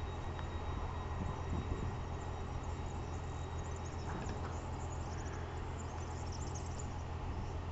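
PKP Intercity ED160 (Stadler FLIRT) electric multiple unit humming steadily at the platform, a low even drone from its electric equipment. Faint high chirps sound over it.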